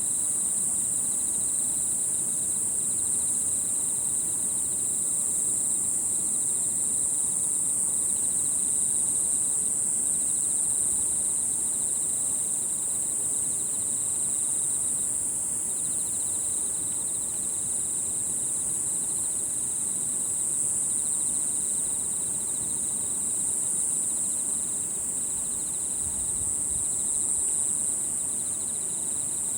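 Night-time chorus of singing insects, crickets among them: a continuous high-pitched shrill runs without a break, and a lower pulsed trill comes and goes in phrases a few seconds long.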